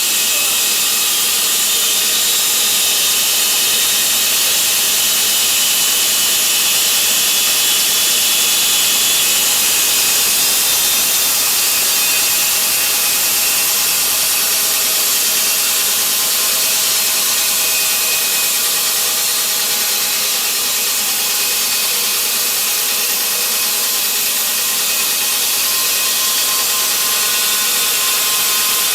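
Portable horizontal band sawmill with an electric motor running and its band blade sawing through a log: a steady, high-pitched hiss of blade on wood that holds even throughout.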